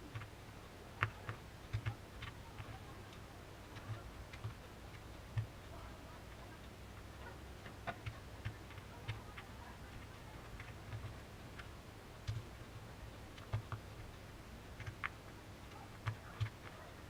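Irregular small clicks and taps from paper and cardboard pieces being handled and worked by hand, over a low steady hum.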